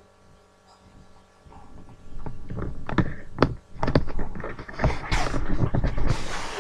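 Handling noise from the recording device's microphone: a faint steady hum, then from about two seconds in, irregular loud knocks and rubbing as the device is gripped and moved.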